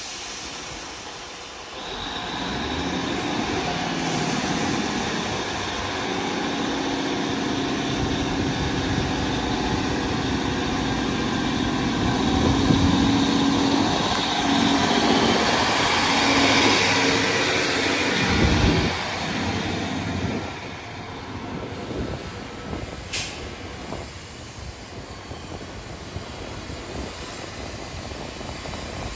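Class 153 diesel railcar pulling away from the platform: its diesel engine grows louder about two seconds in, with a thin high whine and wheels clattering over the rail joints. The sound is at its loudest in the middle, then drops off suddenly and fades as the railcar moves away.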